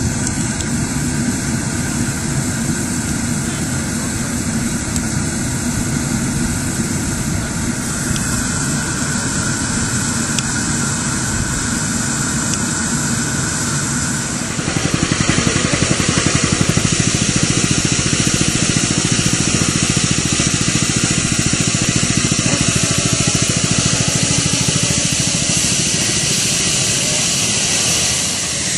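Miniature pannier tank steam locomotive running: a steady hiss of steam with running noise. About halfway through it gets louder and hissier.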